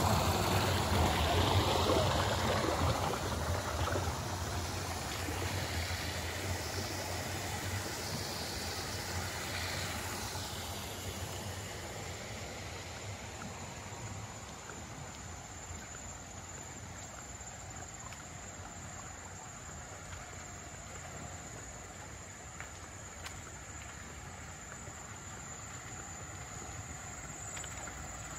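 Water running in irrigation channels and spilling over a small cascade, a steady rushing that is loudest at first, fades over the first dozen seconds, and rises a little again near the end.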